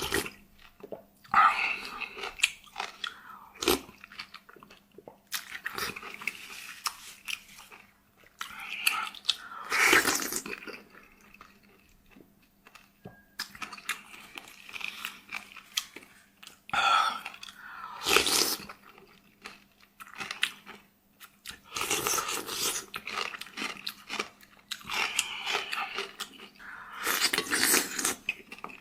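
A person chewing and biting food close to the microphone, with crunching bites and irregular mouth noises. Louder bursts come about ten seconds in, again around eighteen seconds, and near the end.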